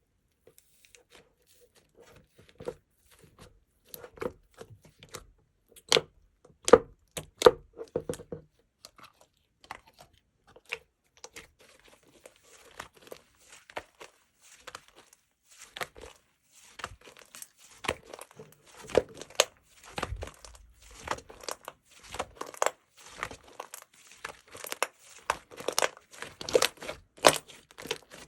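Slime being squished, stretched and poked by hand, giving irregular crackles, pops and clicks. There is a loud flurry of pops partway in, then sparser crackling, and denser, louder crackling through the second half.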